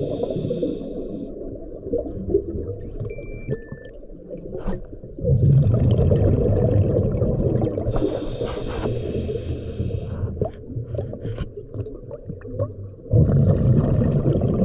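Underwater sound picked up by a submerged camera: a diver's breathing through a scuba regulator, with long rushes of exhaled bubbles starting about five seconds in and again near the end, and a hiss between them.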